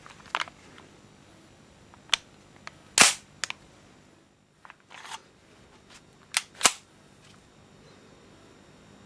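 Sharp clacks from the action of a KWA TT-33 airsoft gas blowback pistol, about seven of them at irregular spacing, the loudest about three seconds in and another near seven seconds.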